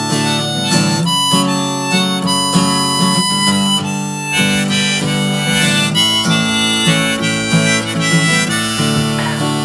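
Instrumental break in a country-folk song: harmonica playing a melody over acoustic guitar strumming.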